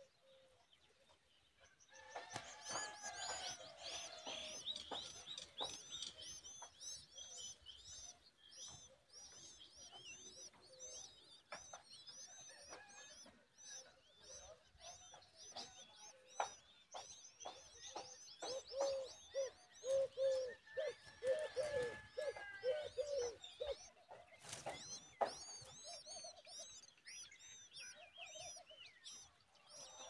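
Common babbler nestlings begging: a dense stream of rapid, high-pitched cheeps that starts about two seconds in, while an adult feeds them at the nest. Around the middle a lower, evenly pulsed bird call runs alongside for a few seconds.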